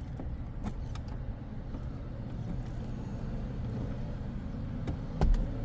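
Steady low hum inside a car cabin, with faint clicks from a plastic interior dome-light cover being handled and pried, and a low thump about five seconds in.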